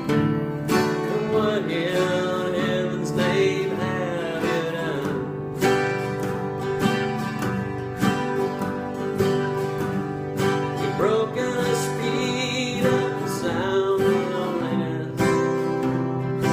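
Acoustic guitar music: strummed chords with a steady pulse, and a wavering melody line rising over them a few seconds in and again past the middle.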